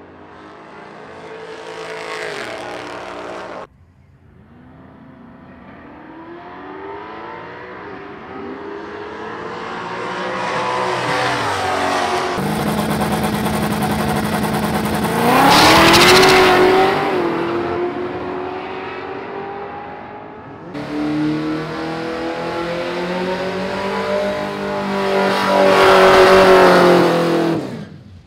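Loud race-car engines accelerating and passing in several cut-together clips, the engine note climbing and falling as each car goes by. The loudest passes come about halfway through and near the end.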